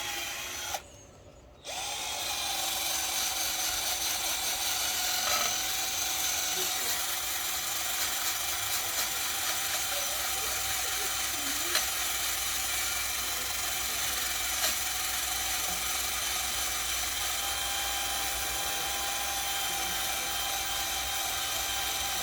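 Electric drill spinning a wire wheel, scrubbing rust off an exhaust pipe. It cuts out briefly near the start, restarts about two seconds in, then runs steadily.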